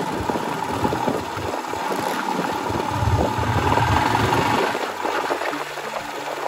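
Royal Enfield Himalyan's single-cylinder engine running as the motorcycle rides along a dirt road, heard from the rider's seat.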